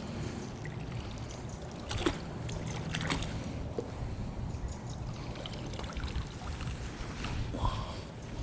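Water trickling and splashing over a low, steady wind rumble on the microphone, with a couple of sharp clicks about two and three seconds in.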